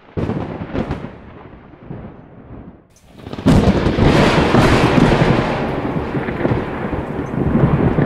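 Thunderstorm: thunder with rain. A sudden crack of thunder at the start rumbles away over a few seconds, then about three and a half seconds in a loud thunder crash comes in with heavy rain and keeps going.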